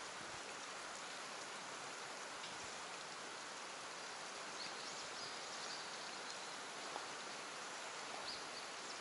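Steady, even hiss of water, with a few faint high chirps about halfway through and again near the end.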